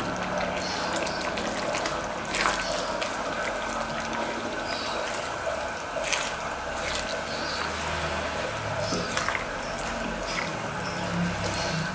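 Coconut-milk chili sauce simmering and bubbling steadily in a wok, with a few sharp clicks of the spatula against the pan.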